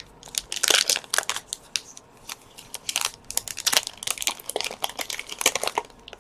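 Foil booster pack wrapper of a Pokémon trading card pack being torn open and crinkled by hand, in irregular bursts of crackling.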